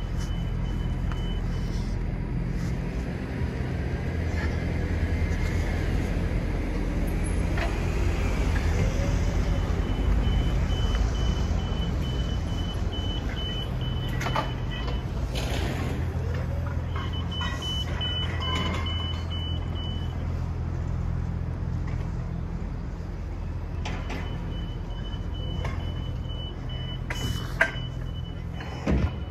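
Vehicle engines and street traffic, with a steady low engine hum. A high beeping comes and goes, and there are a couple of sharp knocks near the end.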